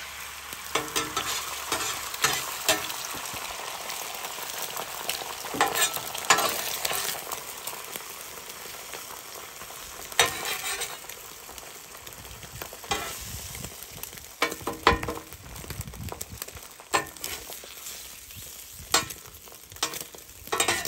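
Beaten eggs sizzling in oil on a hot 17-inch Blackstone griddle, with a steady hiss throughout. A metal spatula scrapes and taps the steel plate in short clusters as the egg is spread and folded into an omelet.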